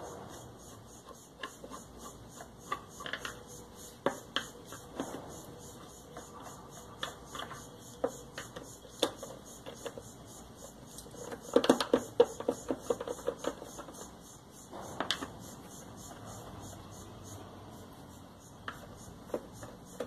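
Screwdriver turning out screws from the grey plastic top housing of an Electrolux Flex wet-and-dry vacuum, with scattered clicks and plastic knocks. There is a denser run of clicking and rattling about a third of the way in, and another sharp knock a little after.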